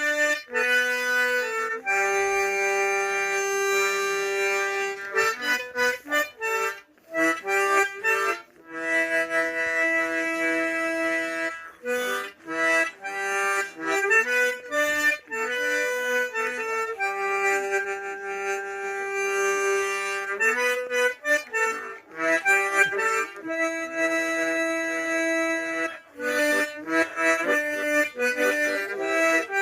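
Harmonica (rondín) playing a solo Andean melody: long held notes alternate with quick runs of short notes, and the phrase repeats several times.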